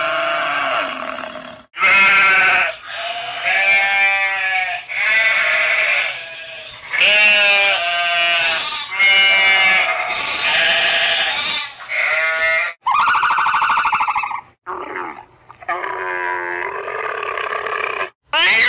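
Animal calls from several spliced recordings: a run of loud, wavering, pitched cries, each lasting about a second, with a differently pitched call after a cut near the end.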